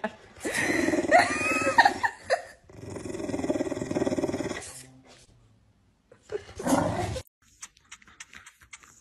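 English bulldog growling and grumbling with a toy ball in its mouth, in three bouts of rapid rumbling pulses, with a whining rise and fall about a second in.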